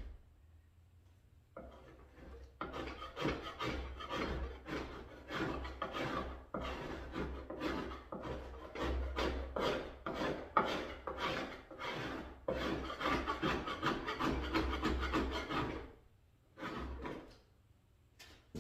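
Plastic paint scraper drawn in short, repeated strokes over a wooden door, lifting several coats of old paint softened by chemical stripper. The strokes come a few per second, pause briefly near the end, then resume.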